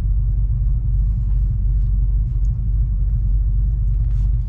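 A parked truck's engine idling, heard from inside the cab as a steady, even low rumble.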